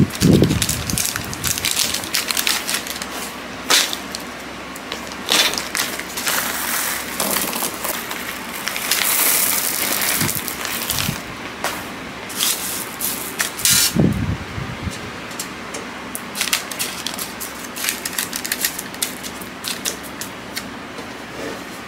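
Baking paper crinkling as it is pressed into a tart tin, then metal pie weights poured from a plastic bag onto the paper with a dense rattle around the middle, a dull knock, and scattered clicks and clinks as the weights are spread flat by hand.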